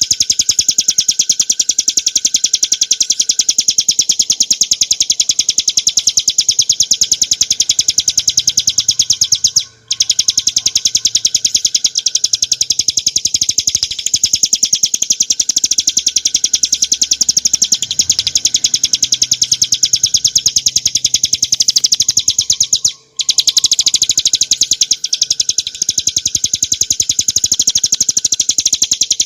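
Ciblek gunung, a small prinia, singing a loud, very fast, continuous run of repeated high notes, breaking off briefly twice.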